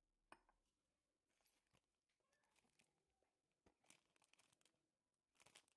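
Near silence, with faint crinkles and clicks of a clear plastic food packet being handled, a little denser near the end.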